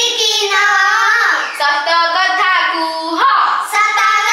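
Young girls singing a multiplication-table rhyme in Odia, the voices gliding up and down between held notes.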